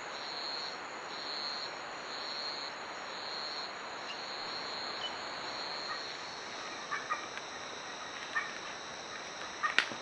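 Jungle ambience: a high, buzzing insect chorus pulsing just under once a second, which becomes a steady high drone partway through, over a constant background hiss. A few short, sharp chirps or clicks come near the end.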